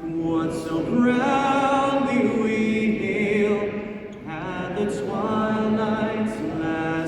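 A solo singer performing a national anthem over an arena's sound system, holding long notes with vibrato and sliding between them, with a short break for breath about four seconds in.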